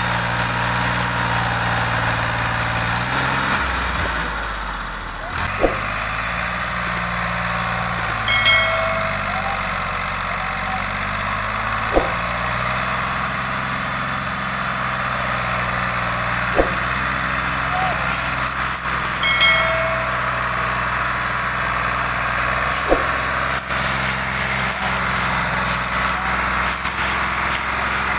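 Farm tractor's diesel engine running under load as it pulls a heavily overloaded sugarcane trolley; the engine note dips about four to five seconds in, then picks up again and holds steady, with a few short knocks.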